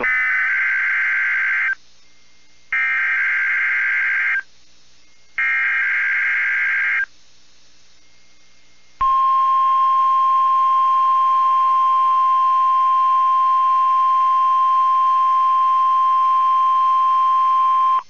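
NOAA Weather Radio emergency alert signal: three SAME digital header bursts, each a harsh warbling buzz of nearly two seconds, about a second apart. Halfway through, the steady 1050 Hz weather radio warning alarm tone starts. It marks the start of a broadcast test tornado warning.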